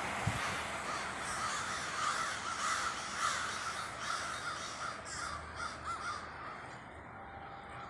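A flock of American crows roosting in a bare tree, cawing over one another in a chorus of many short, overlapping calls that thins out near the end.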